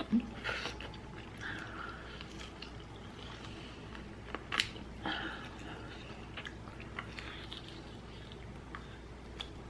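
Close mouth sounds of a person chewing a mouthful of ramen noodles and vegetables, with scattered wet clicks and smacks. One sharper click comes about four and a half seconds in.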